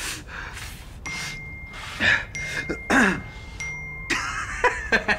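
Phone text-message alert going off three times, each a short held high beep, about a second apart. A man's breathing and falling vocal sounds come in between, and a quick run of clicks follows near the end.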